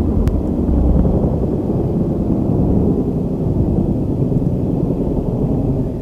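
Thunder rolling in a long, low, loud rumble that holds steady for several seconds.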